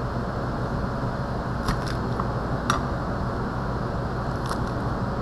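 A few short clicks and taps of a chef's knife on a plastic cutting board as garlic cloves are gathered and crushed under the flat of the blade, with one sharper snap a little past the middle. A steady hum runs underneath.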